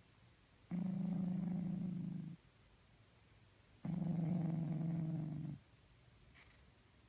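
A sleeping cat snoring: two long, buzzy, purr-like breaths, each about a second and a half long, with quiet pauses between them.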